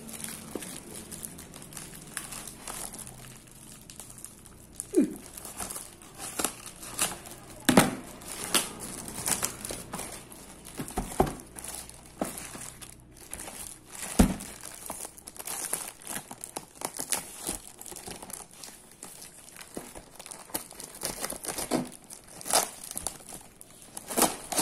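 Plastic parcel wrapping and tape crinkling and tearing as a taped package is cut open with a kitchen knife and pulled apart, in irregular crackles with several louder ones scattered through.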